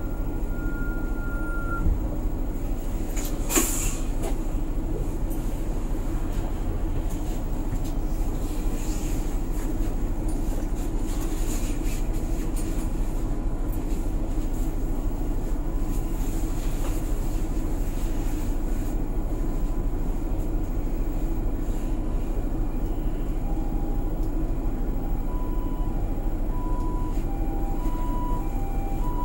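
Cabin noise of a city route bus on the move: engine and road noise running steadily, with a single sharp knock a few seconds in. From about three-quarters of the way through, a Japanese ambulance siren sounds, switching back and forth between a higher and a lower pitch, the 'pee-po' pattern.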